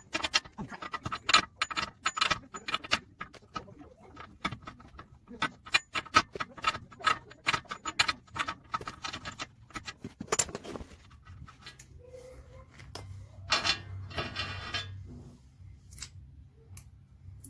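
Socket ratchet clicking quickly and unevenly as the rear hub nut of a 2006 Fiat Grande Punto is spun off, followed by metal clatter and a rattling scrape in the last few seconds.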